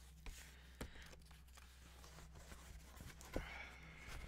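Faint handling of a cardboard shipping box: a few light knocks, the loudest about three seconds in, then a soft scrape of fingers on cardboard near the end, over a steady low electrical hum.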